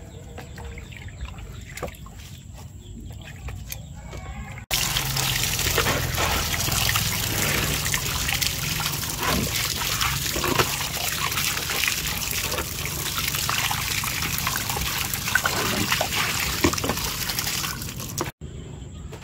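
Running water pouring and splashing over raw pork ribs as hands rinse them, falling onto concrete and into a plastic tub. The splashing starts suddenly about five seconds in, after a quieter stretch, and stops suddenly near the end.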